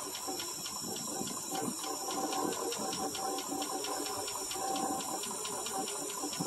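1963 International C120's 266 V8 running on gasoline poured straight into the carburetor, a steady hiss with a light tick about five times a second.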